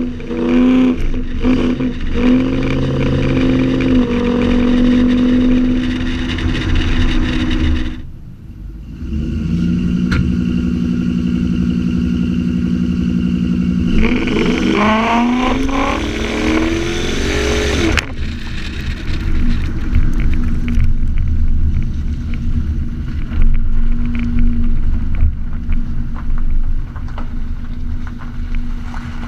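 Supercharged 5.4-litre V8 of a Ford Lightning pickup running through Kooks headers, high-flow cats and a Bassani X-pipe exhaust. It holds steady revs, dips briefly, then revs up in rising sweeps about halfway through before settling into a rougher, less even running sound.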